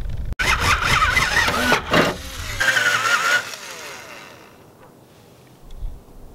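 Power drill boring through the car's steel quarter panel, the bit chattering as it cuts, then whining at a steady pitch before winding down about three and a half seconds in.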